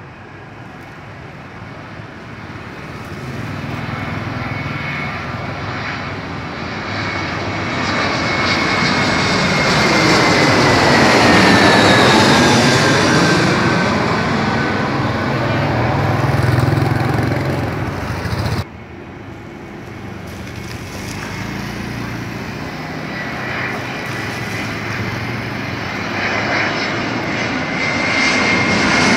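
Twin-engine jet airliners on landing approach passing low overhead. The first grows louder to a peak about ten seconds in, its engine whine falling in pitch as it passes over. The sound then cuts off abruptly a little past halfway, and a second approaching jet builds up again toward the end.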